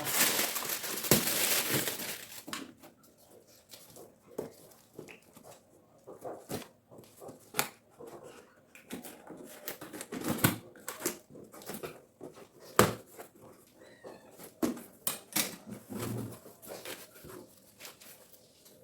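Plastic packaging crinkling and rustling as things are handled: a dense rustle for the first two seconds, then scattered light clicks and knocks.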